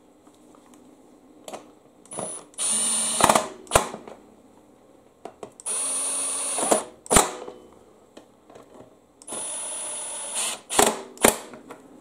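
Milwaukee FUEL brushless cordless driver spinning in three short runs of about a second each, driving in the screws that cinch down a lawn mower's engine cover. Each run is followed by a sharp click or two.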